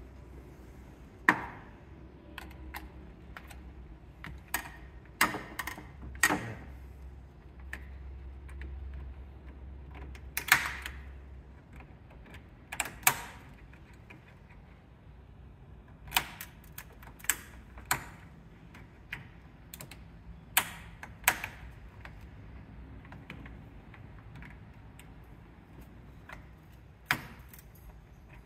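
Irregular sharp clicks and clacks of hand tools on plastic clips, connectors and hose fittings being worked loose in a car's engine bay, as the radiator fan shroud is disconnected. A low steady hum runs underneath and stops a little under halfway through.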